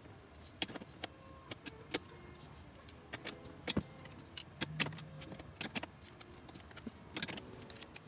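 Irregular clicks, taps and knocks of a thin metal line being handled and pressed into the plastic clips of a radiator fan shroud, with a few brief metallic rings.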